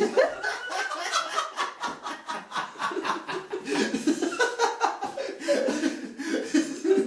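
Laughter: an unbroken run of quick laughing pulses that goes on for several seconds.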